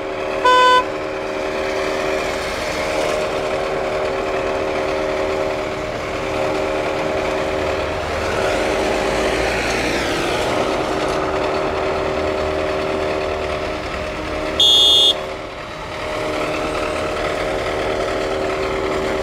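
A vehicle engine running steadily with a constant hum, with a rising and fading rush of noise around the middle. A short, loud beep sounds about half a second in and again about 15 seconds in.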